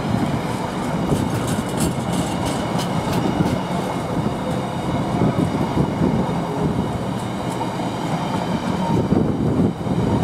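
Intermodal container freight train's wagons rolling past close by: a steady, heavy rumble of wheels on the rails, with scattered sharp clicks in the first few seconds and again about two-thirds of the way through.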